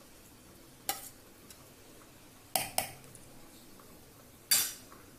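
Metal spoon scraping and knocking against the inside of a metal mixer-grinder jar while stirring coarsely ground cooked wheat: a few short clinks, one about a second in, two close together midway, and the loudest near the end.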